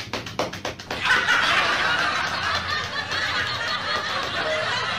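Gloved hands slapping a foam-lathered head in a barbershop head-slap 'hair laundry' treatment: quick sharp slaps, several a second, for the first second, then a fast continuous wet patter of hands on the foam.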